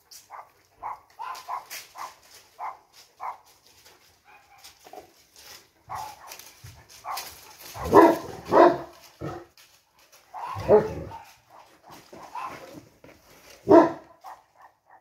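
Greek shepherd dogs barking: a run of short, quieter yips, then four louder, deeper barks from about halfway on, the last near the end.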